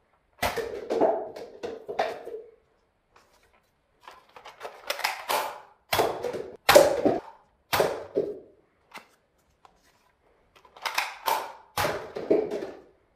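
A toy foam-dart blaster firing repeatedly, with sharp clicks and knocks as the darts hit and topple paper cups stacked on toy blocks. The shots come in three bursts with short pauses between them.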